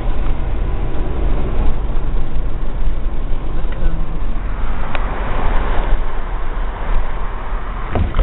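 Road and engine noise of a moving car heard from inside, a steady low rumble, with a sharp click about five seconds in.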